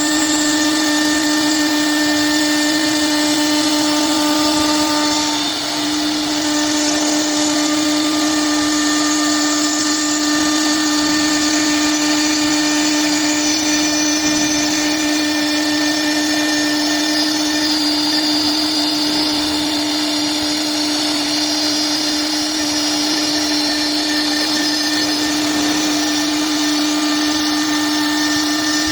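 Blue Elephant ES4-3620 CNC bridge saw running its blade through a cut: a loud, steady machine whine with a strong held tone and hiss above it, with a slight dip in level about five seconds in.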